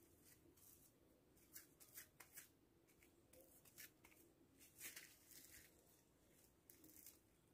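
Faint crinkling of plastic film and soft handling as dough is pressed into a plastic-lined carved wooden cookie mould, heard as short, irregular crackles.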